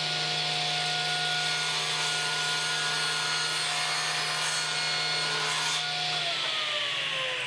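Table saw running steadily while crosscutting a 2x4 pushed through on a crosscut sled. About six seconds in, the motor is switched off and its whine falls in pitch as the blade spins down.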